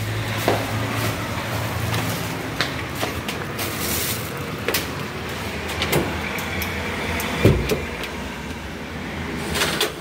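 Road traffic: car engines running and passing, with a steady low hum and scattered clicks. A short low thump comes about seven and a half seconds in.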